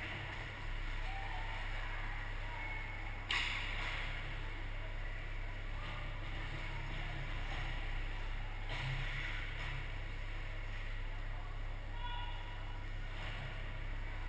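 Ice hockey arena sound during play: a steady low hum with distant, indistinct voices and skating noise. A sharp knock about three seconds in, typical of a stick or puck striking, with a softer one near nine seconds.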